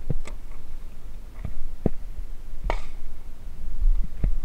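A paper target and its cardboard backer being handled: a few sharp clicks and knocks, and a short paper rustle a little before the three-second mark. A steady low rumble of wind on the microphone runs underneath.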